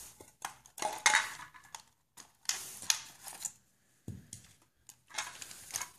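Hard plastic clicks and clatters as a rechargeable stick battery pack is pulled out of a toy RC car's plastic battery bay and handled. The knocks come as a loose scatter of separate taps over several seconds, with short pauses between them.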